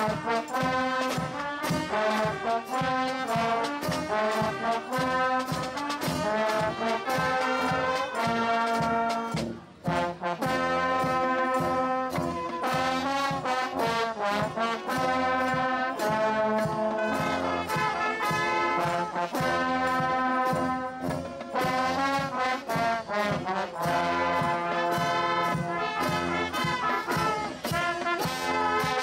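Carnival brass band of trombones and trumpets playing an upbeat tune over a steady beat, with a brief break about ten seconds in before it plays on.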